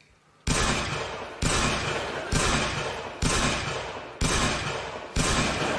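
A pistol fired into the air six times, about once a second, each bang sharp with a long fading tail: a series of shots given as a 'yes'.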